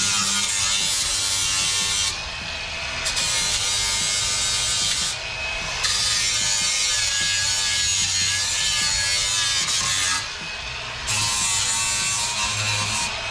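Angle grinder with an 80-grit flap disc grinding down the freshly cut edge of a steel truck bumper to take off the sharp burr. The grinding dips briefly three times, about two, five and ten seconds in, as the disc comes off the metal, then bites again.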